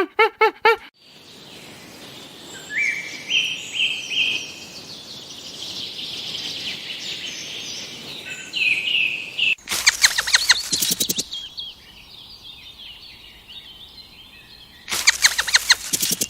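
Birds chirping and calling over steady outdoor background noise, with two loud bursts of rapid, repeated chattering calls about ten seconds in and again near the end.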